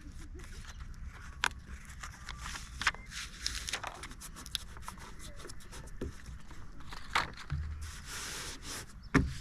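Scraping and rubbing of hands working EVA foam deck panels into place, with scattered light clicks and knocks and a longer scrape about eight seconds in.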